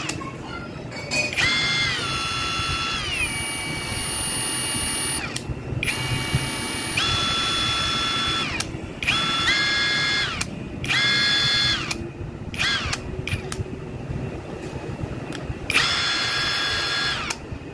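Ingco 20V brushless cordless impact wrench spinning freely with nothing on its anvil, triggered in about six short runs. Its motor whine steps up and glides down in pitch as the speed changes.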